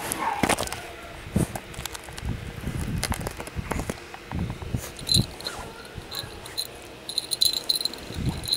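Beagle puppy mouthing and pawing at the camera: irregular knocks, bumps and rubbing on the microphone. In the second half a faint, high chirping comes and goes.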